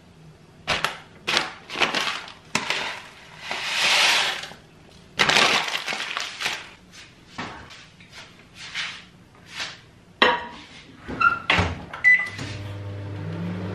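Dry oats rustling and pouring into a glass bowl, with shaking and light handling clinks. About ten seconds in, a microwave oven door clunks shut, two short beeps sound, and the microwave starts running with a steady low hum.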